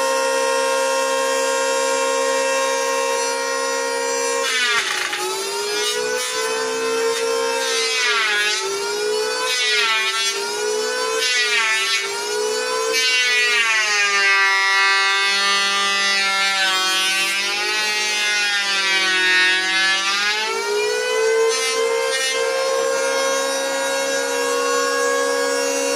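An electric wood planer running with a high whine. Its pitch sags and recovers again and again as boards are fed through and cut, bogging most in a long pass near the middle, then settles back to a steady free-running whine near the end.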